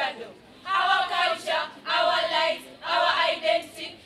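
A group of women's voices singing together unaccompanied, in three short phrases with brief pauses between them.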